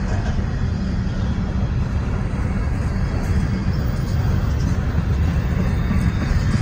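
Freight train cars rolling past: a steady rumble of steel wheels on the rail.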